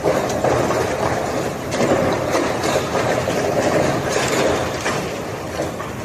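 Steady roar of strong cyclone wind, swelling and easing, with scattered short crackles.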